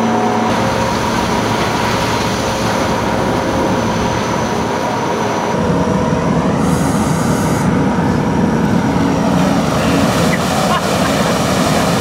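Ready-mix concrete mixer truck's diesel engine running with the drum turning, a steady mechanical rumble. About halfway through, the rumble gets louder.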